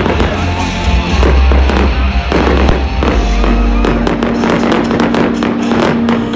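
Fireworks display: firework bangs and pops over loud music, turning into a dense run of rapid crackling pops from about four seconds in.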